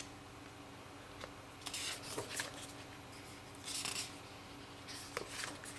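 Pages of a hardcover book being turned by hand: three short papery swishes, about one and a half to two seconds apart.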